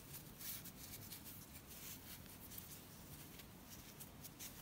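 Near silence, with faint soft rustles and a few light ticks of cotton yarn and an aluminium crochet hook being handled as the yarn is wrapped back over a finger.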